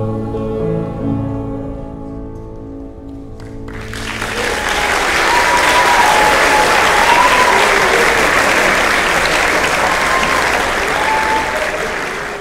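A mixed choir ends its song on a held chord; about four seconds in, the audience breaks into loud applause with some cheering, tapering off slightly near the end.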